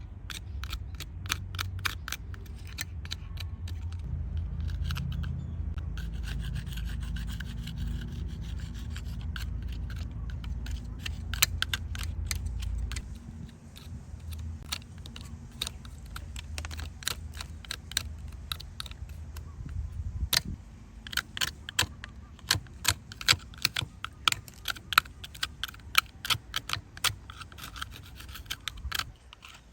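Rubbing and scraping on a small diecast metal toy car with many sharp light clicks and taps, thicker toward the end, over a low rumble that stops about thirteen seconds in.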